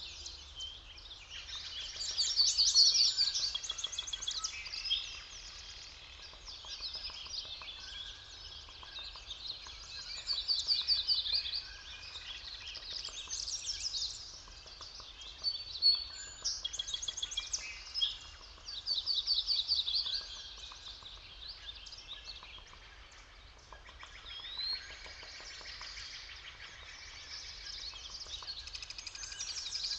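Forest birds singing: rapid trilled song phrases, several overlapping, coming in bursts every few seconds, over a faint steady low background noise.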